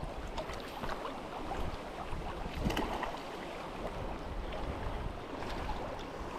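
River water splashing and gurgling around a floating raft, with wind buffeting the microphone; a slightly louder splash about two and a half seconds in.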